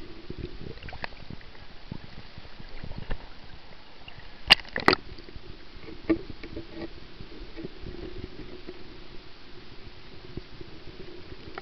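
Muffled underwater water noise in shallow sea water, with a steady low hum and scattered sharp clicks; the loudest are two clicks close together a little before halfway, and one more just after.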